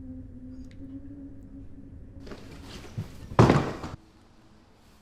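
A steady low hum, then a rush of noise with a short knock and, about half a second later, a loud heavy thump.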